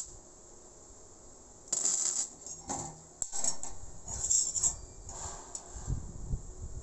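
Steel pieces clinking and scraping against square steel tubing as they are handled, in a string of sharp metallic clinks over a few seconds, followed by a few low knocks near the end.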